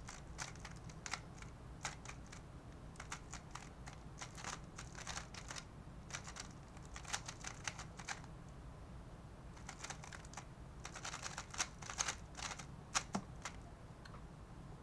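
Rapid clicking of a QiYi Valk 3 Elite M magnetic 3x3 speedcube being turned fast during a timed speedsolve, in quick bursts of turns with short pauses between them, and a few sharper clicks near the end.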